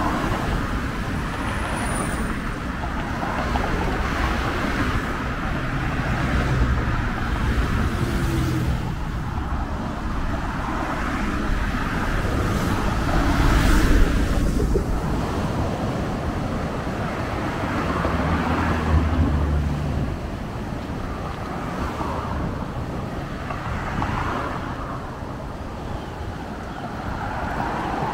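Steady road traffic, cars passing one after another. The low engine hum of a heavier vehicle stands out about a quarter of the way in and again about two-thirds through.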